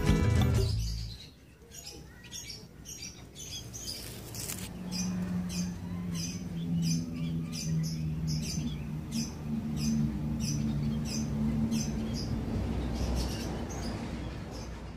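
A small bird chirping over and over, short high chirps about two a second. A low steady hum sets in about four seconds in and fades near the end, and background music cuts off in the first second.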